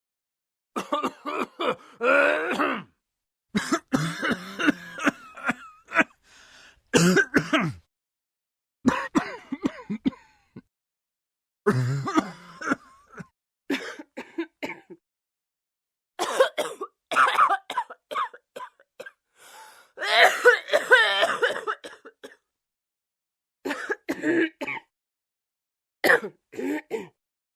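Person coughing and clearing the throat in a series of about ten separate bursts, each a second or two long, with short silent gaps between them.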